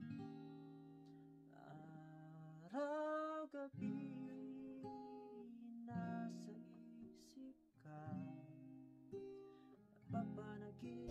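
Soft background music: acoustic guitar with a voice singing in places.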